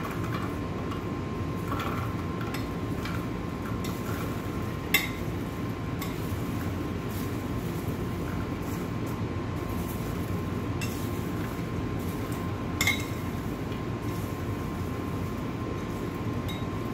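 A metal spoon scraping and clinking against a saucepan as popcorn is scooped and tipped onto a plate. A few sharp clinks stand out, the loudest about five seconds in and again near thirteen seconds. Underneath runs a steady low hum with a faint steady tone.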